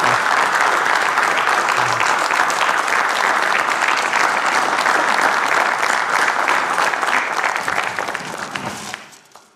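Audience applauding: a dense run of clapping that thins out and dies away over the last couple of seconds.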